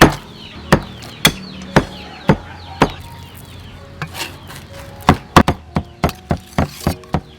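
Knife chopping on a wooden cutting board: about six evenly spaced chops, a short pause, then a quicker run of chops.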